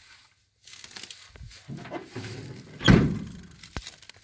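Rustling and shifting, then the heavy steel door of an old truck cab being shut with a single loud thunk about three seconds in.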